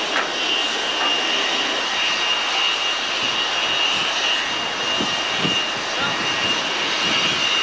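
Ground power cart running steadily beside a parked airliner: a constant high whine over a broad roar, with a few faint knocks about midway.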